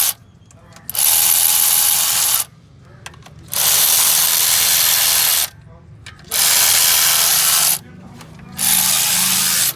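Compressed air blasting in four bursts of loud hiss, each lasting one and a half to two seconds, with about a second's pause between them.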